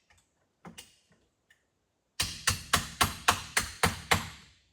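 A small ratchet tapping a steel punch to drive the piston pin out of a Stihl MS 311 chainsaw piston: two light taps, then about two seconds in a run of eight sharper metal strikes, roughly three a second, each with a brief ring.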